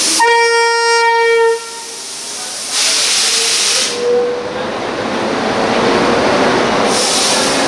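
WAP-7 three-phase electric locomotive starting up: a horn blast of just over a second, then two bursts of air hissing, about three and seven seconds in, over a steady running noise that grows slightly louder.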